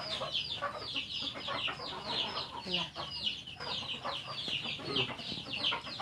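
Chickens chirping and clucking: a steady run of short, high, falling chirps, several a second.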